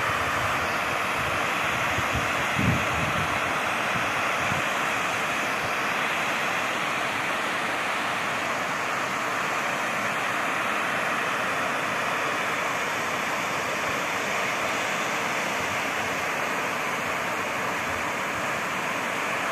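Steady rushing of water jetting out under pressure from a discharge outlet at the foot of a concrete dam and splashing down into the river bed. Wind buffets the microphone a few times in the first three seconds.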